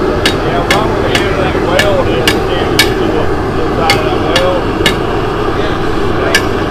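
Hand hammer striking hot steel on an anvil as a blade is forged from scrap metal: about ten ringing blows, roughly two a second, with a pause of about a second midway.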